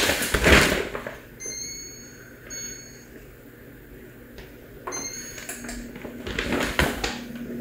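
Three short, high electronic beeps from an appliance's control panel, spaced unevenly, with clattering handling noise at the start and again near the end.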